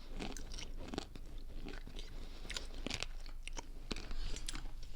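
Someone biting and chewing a crunchy piece of chalk close to the microphone: irregular sharp crunches, a few every second.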